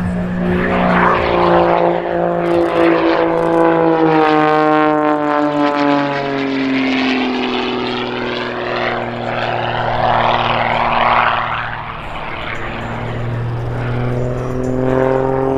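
Pitts aerobatic biplane's piston engine and propeller running hard through aerobatic manoeuvres, a loud drone whose pitch slides down over a few seconds, holds low, then climbs again near the end.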